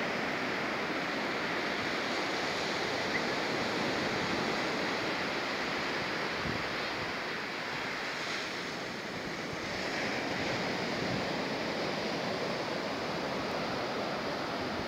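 Surf breaking and washing up a sandy beach: a steady, even rushing of waves.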